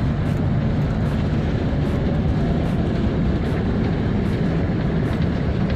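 Steady low rumble of a Hino R260 bus's diesel engine idling, heard from inside the passenger cabin.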